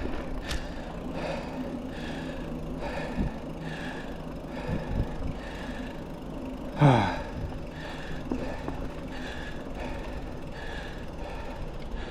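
A mountain biker breathing hard and rhythmically while riding, over steady trail noise. About seven seconds in comes one loud sigh that falls in pitch.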